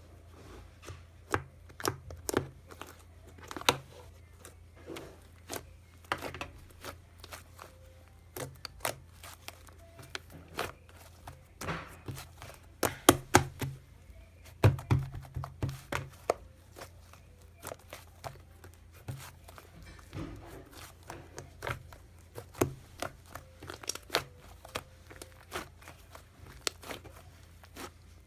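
Hands working a soft, sticky material: an irregular stream of sharp clicks, pops and crackles, busiest and loudest in the middle, over a low steady hum.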